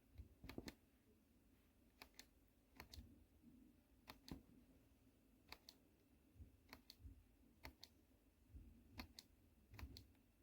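Near silence with faint, sharp clicks at irregular intervals, some in close pairs, over a low steady hum.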